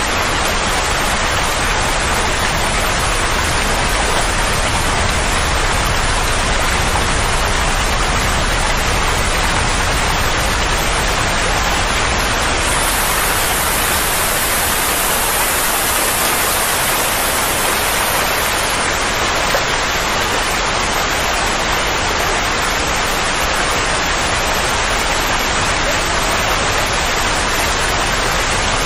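Steady, even rushing noise with no pitch or rhythm, a continuous soothing-noise track of the kind played to calm a colicky baby.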